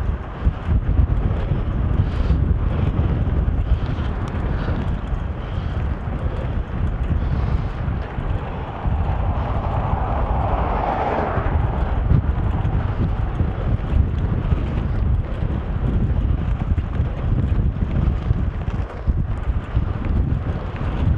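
Steady wind buffeting the microphone over low engine and road rumble from a vehicle under way. About ten seconds in, an oncoming car passes, a swell of noise lasting a couple of seconds.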